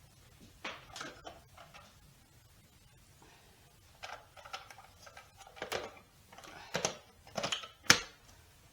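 Food processor parts and kitchen utensils being handled while the machine is made ready to puree: a string of separate knocks and clicks, busier toward the end, the sharpest near the end. The motor is not running.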